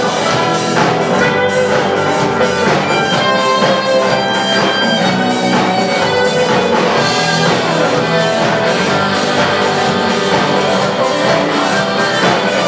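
Instrumental passage of a Russian rock song: a full band with a steady drum beat and no singing.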